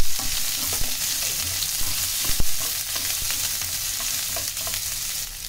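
Baby corn and carrot slices sizzling in hot oil in a pan, with a wooden spatula scraping and knocking against the pan as they are stirred. The sizzle eases slightly toward the end.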